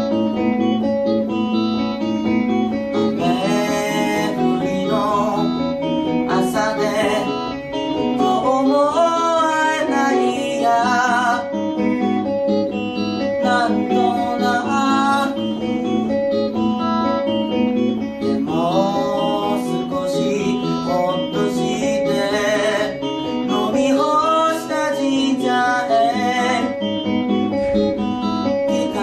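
Electric guitar playing a melodic lead line with string bends and wide vibrato, over a steady accompaniment of sustained low notes that change every few seconds.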